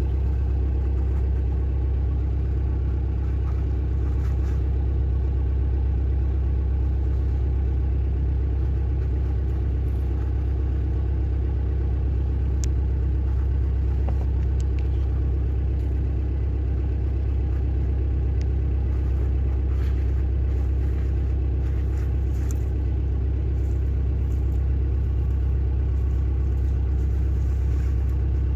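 A steady low mechanical hum runs unchanged throughout, with a few faint clicks scattered through it.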